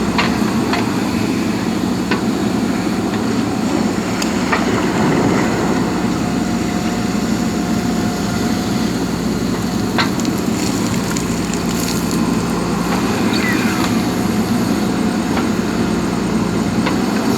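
JCB backhoe loader's diesel engine running steadily under work, with a few sharp knocks, the metallic clanks of the bucket and linkage.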